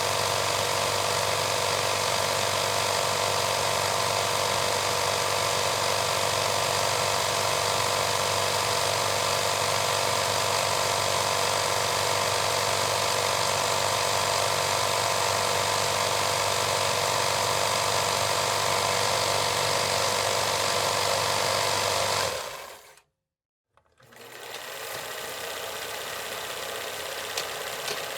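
Film projector running: a steady mechanical rattle with a low hum under it. About 22 seconds in it fades out to silence, then comes back a second or so later, quieter and with less of the low hum.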